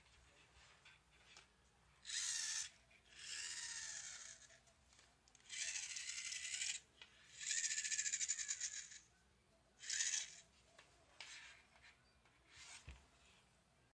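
Black metal pan-tilt bracket and MG996 servo being handled and fitted together, giving separate bursts of scraping and rattling, about five of them, each up to a second and a half long, with a few shorter ones near the end.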